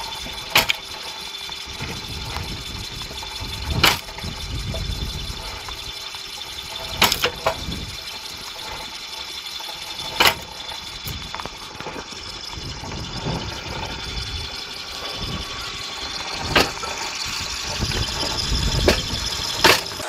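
A belt-driven mechanical wood splitter runs steadily, its blade arm swinging through a gearbox drive. A sharp crack comes every few seconds as the blade strikes and splits a piece of wood.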